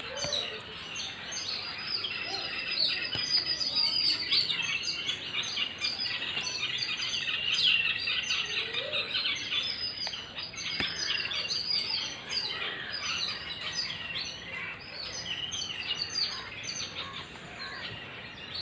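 Many small birds chirping and calling at once in a busy, continuous chorus of short high chirps.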